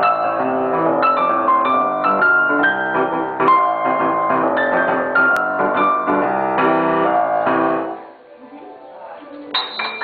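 Grand piano played by children, several parts at once, with quick notes in a steady stream that stops about eight seconds in.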